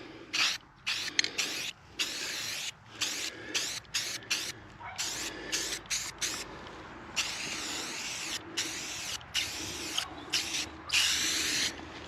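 Aerosol spray paint can hissing in many short bursts with brief gaps between them, painting lettering onto a board.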